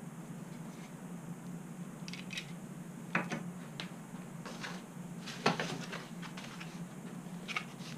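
Small items handled and set down on a workbench: a series of light clicks and knocks, the loudest about five and a half seconds in, over a steady low hum.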